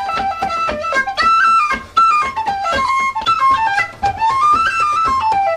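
A fast Irish traditional dance tune on a high flute-type wind instrument, its melody moving quickly up and down, with a bodhrán beaten along underneath.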